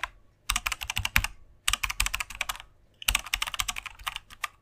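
Keyboard typing sound effect: rapid key clicks in three bursts with short pauses between them, the first starting about half a second in.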